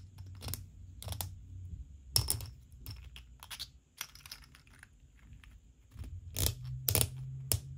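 3D-printed plastic parts of a propeller toy clicking and scraping in the hands as a threaded end is screwed into a printed tube, with scattered sharp clicks, loudest about two seconds in and near the end. The printed threads are a tight fit.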